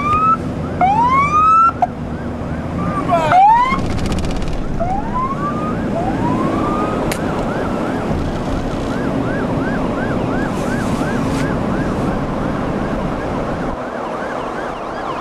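Emergency vehicle sirens. Slow rising wails, two overlapping around three seconds in, give way about seven seconds in to a fast repeating yelp, over steady road and traffic noise.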